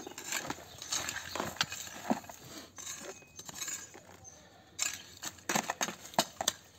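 A hand hoe's metal blade chopping and scraping into dry, stony soil, dragging earth in to backfill around a buried plastic bucket. It makes a run of irregular knocks and scrapes, thinning out in the middle and picking up again about five seconds in.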